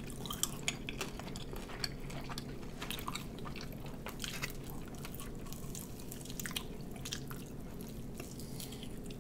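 Chewing and biting into sauced chicken wings, with scattered short clicks and mouth sounds over a steady low hum.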